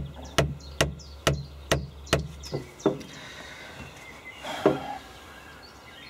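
A loose hydraulic joystick being handled in a tractor cab: a run of about eight sharp, evenly spaced knocks, a little over two a second, then one more knock a couple of seconds later.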